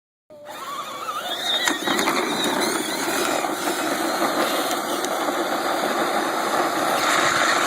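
Battery-powered ride-on toy skid steer running on its 12-volt upgrade, the electric drive motors and gearboxes whining over a steady rumble of wheel and ground noise. The sound cuts in suddenly just after the start.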